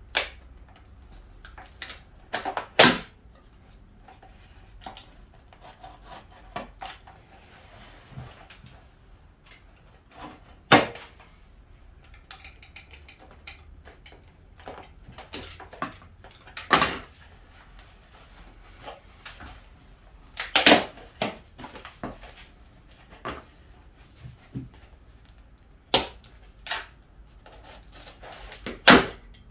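Utility knife slitting open a plant pot and the pot being worked off the plant's root ball: scattered cracks, scrapes and clicks, with about half a dozen sharp, louder knocks spread through.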